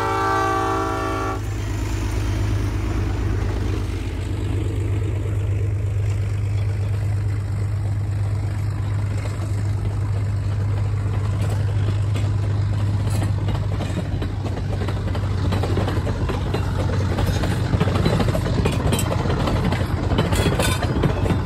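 A locomotive sounding a sustained chord on its horn, which cuts off about a second and a half in, followed by a steady low rumble of a train running.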